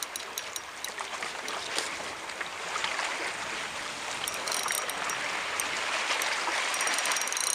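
Water trickling and lapping against a kayak, with short runs of fishing-reel clicking about halfway through and again near the end while a hooked brown trout is fought.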